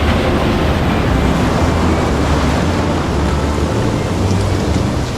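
Ocean waves washing and breaking, with wind buffeting the microphone.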